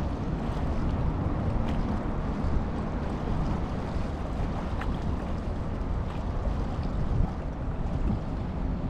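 Wind blowing across the microphone, a steady low rush, over choppy open water.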